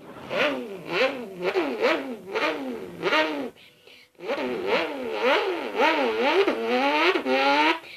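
A person imitating a car engine with their voice: the pitch climbs and drops again and again, like an engine revving up through the gears, with a short break about halfway.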